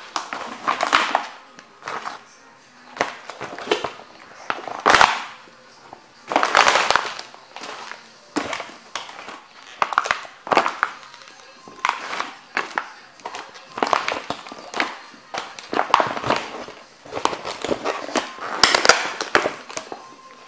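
Rubber boots stomping and grinding on a painted canvas and its broken wooden stretcher frame. Repeated crunching, crackling stomps, about one every second or two, as the dried paint cracks, the canvas crumples and the wood splinters.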